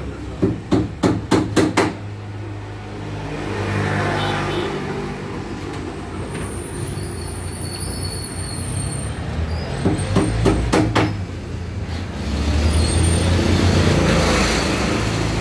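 A motor vehicle's engine runs steadily in the background and swells louder about two-thirds of the way through. Two runs of sharp knocks, about four a second, come in the first two seconds and again just after ten seconds.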